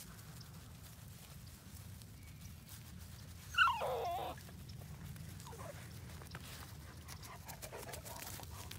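A dog gives one short whine, about three and a half seconds in, falling in pitch, over a steady low background hum.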